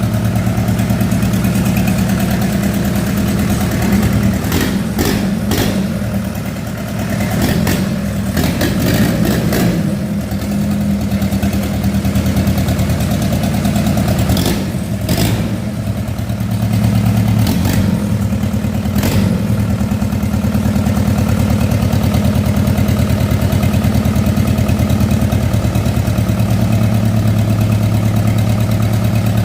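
Freshly overhauled Mitsubishi 4D31 four-cylinder diesel engine running at a steady idle. Several sharp clicks sound over it between about four and nineteen seconds in, and the engine briefly dips a little in level twice.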